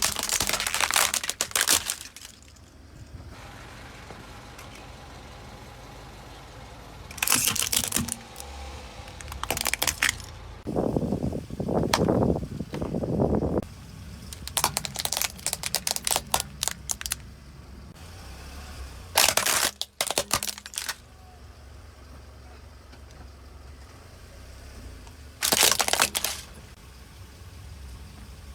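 Car tyre rolling over and crushing crunchy and soft objects: several short bursts of dense crackling and crunching, and a lower, fuller squashing crush about eleven to thirteen seconds in.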